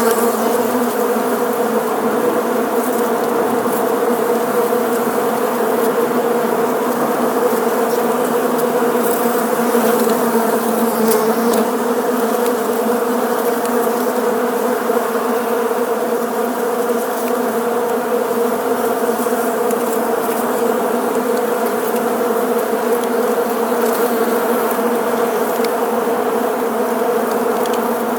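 Bees buzzing together in a steady, continuous drone with a low hum.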